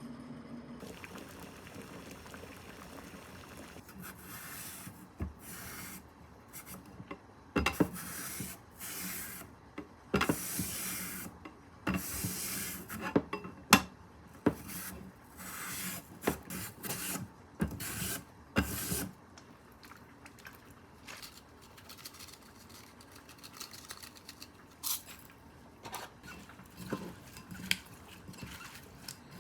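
Kitchen handling sounds: irregular scraping and rubbing with short bursts of rushing noise and a few sharp clicks and knocks, busiest in the first two-thirds and then thinning out.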